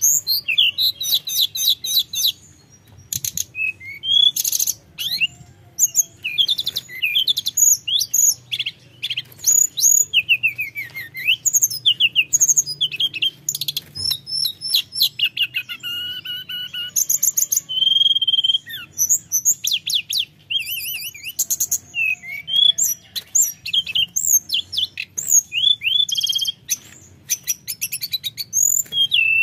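Hill blue flycatcher singing vigorously, an almost unbroken run of varied clear whistled phrases mixed with fast trills and high chips.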